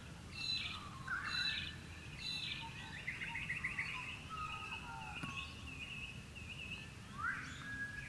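Several birds calling faintly at dawn: short high chirps, a quick trill about three seconds in, a run of repeated notes, and a rising call near the end, over a faint low background rumble.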